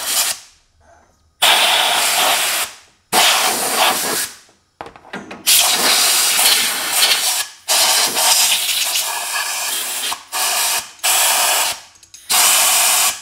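Compressed-air blow gun blowing dust out of a side-by-side's clutch: a loud hiss in about eight blasts of one to two seconds each, starting and stopping sharply.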